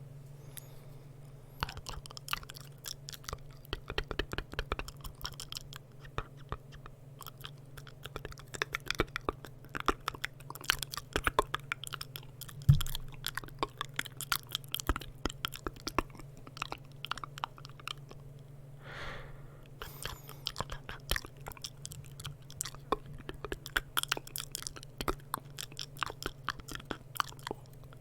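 Close-miked ASMR mouth sounds: rapid, irregular wet clicks and smacks of the lips and tongue, with a brief pause near the start and one sharper click about halfway, over a steady low hum.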